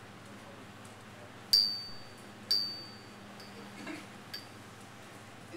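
Two sharp, high-pitched clinks about a second apart, each ringing briefly like small metal or glass being struck, followed by a couple of fainter clinks, over a low steady room hum.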